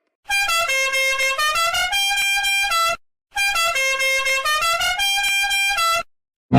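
A buzzy, horn-like melody of stepped notes, played as the same short phrase twice, each about three seconds long with a brief gap between.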